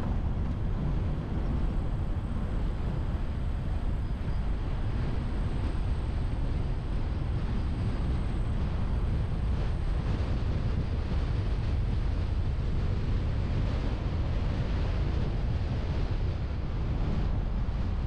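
A car driving steadily: a continuous rush of wind over the car-mounted camera's microphone, mixed with road and tyre noise, heaviest in a low rumble.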